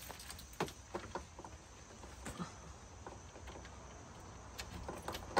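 Scattered light clicks and taps of keys and a door latch being worked at a wooden front door, growing busier near the end.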